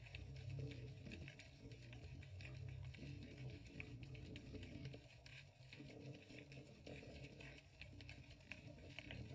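Faint, muffled underwater sound through a GoPro's waterproof housing: a steady low rumble with scattered light crackling clicks.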